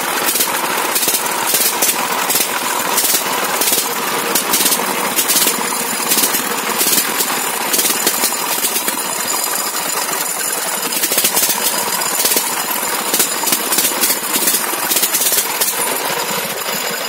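Single-cylinder power-tiller diesel engine running steadily with a fast, hard clatter.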